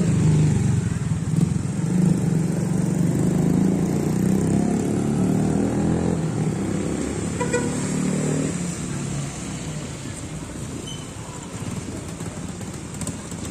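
Motorcycle engine running close by, loud for the first eight seconds or so, then fainter.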